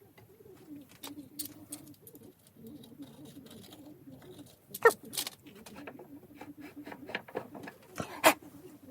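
Scattered sharp clicks and knocks, the loudest about five seconds in and again near the end, over a faint low warbling sound.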